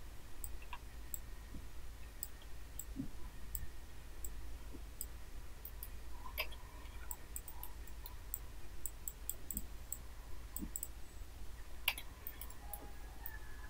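Computer mouse clicking now and then, with a louder click about six and a half seconds in and a spacebar press near the end, over a low steady hum.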